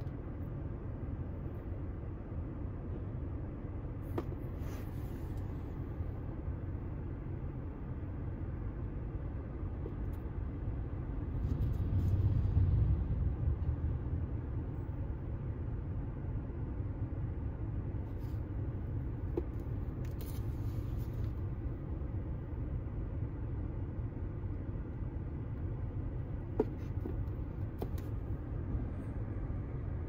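Steady low rumble inside a car cabin, swelling briefly about a dozen seconds in. A few faint rustles and clicks come from the sneakers being handled.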